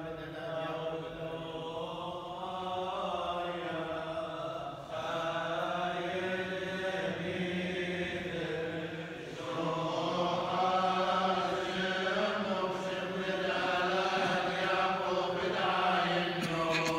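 Male clergy chanting Chaldean funeral prayers: slow liturgical chant sung in long held phrases, with new phrases beginning about five and nine seconds in.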